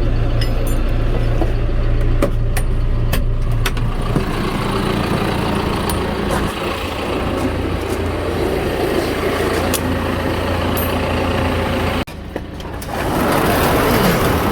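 A vehicle engine running steadily, its pitch dropping about four seconds in, with scattered light clicks and knocks over it. About twelve seconds in the sound breaks off abruptly and resumes as a noisier engine sound.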